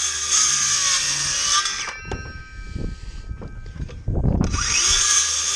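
Cordless DeWalt circular saw cutting through OSB sheathing. It stops about two seconds in, with a brief ringing as the blade winds down. Low rumbling and knocks follow, and the saw starts cutting again near the end.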